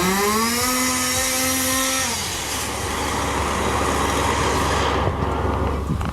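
Two-stroke chainsaw engine revving up to a high, steady whine, held for about two seconds, then dropping off into rougher, noisier running.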